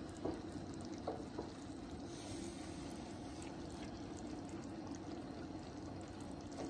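Pot of sugar syrup for bee fondant boiling and foaming over a gas burner turned down low, a steady bubbling rush with a few faint clicks in the first second and a half. This is the foaming stage, when the syrup rises and can boil over.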